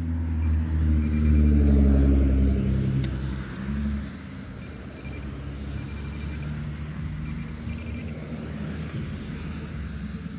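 A motor vehicle's engine running close by, its pitch rising as it swells to its loudest about two seconds in, then fading by about four seconds into a low steady drone.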